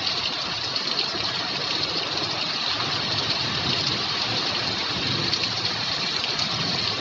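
Steady heavy rain: a dense, even hiss of falling drops, speckled with fine patters.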